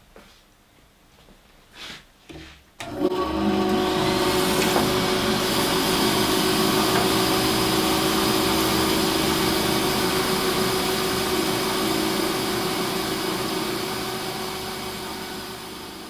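Aldi WorkZone benchtop bandsaw switched on about three seconds in: its motor winds up with a rising whine, then runs steadily while a piece of wood is pushed into the blade. The sound fades out near the end.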